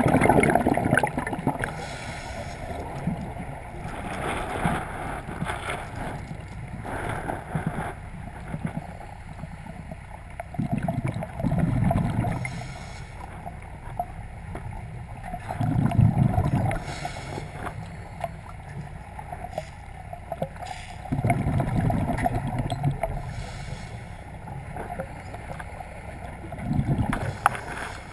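Scuba regulator underwater: a loud gurgling rumble of exhaled bubbles about every five seconds, with fainter hissing between breaths.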